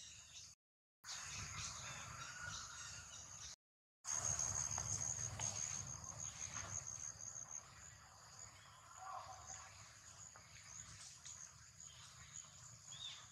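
Outdoor ambience of insects buzzing with a steady high tone over a low rumble, the buzz loudest for a few seconds after four seconds in. The sound cuts out completely twice in the first four seconds.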